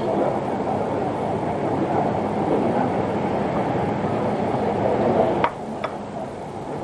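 Steady low rumbling din of a small eatery, with two sharp clinks near the end, after which the background turns a little quieter.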